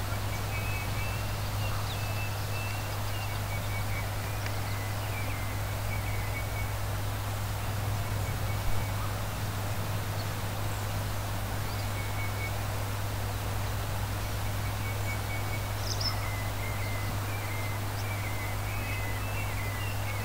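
Steady rush of a large waterfall recorded on a stereo microphone, with birds singing over it in short high chirps and trills. A brief sharp sound stands out about nine seconds in.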